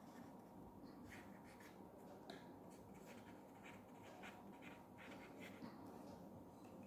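Pen writing on paper clipped to a clipboard: faint, quick scratching strokes in irregular runs, starting about a second in.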